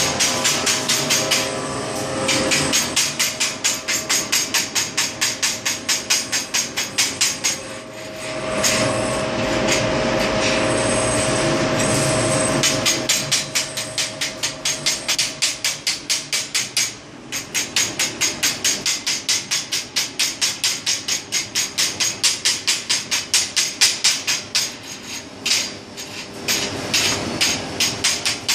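Chipping hammer rapping on freshly arc-welded steel coupons in quick, even taps, several a second, knocking off the weld slag. The taps let up for a few seconds about a third of the way through.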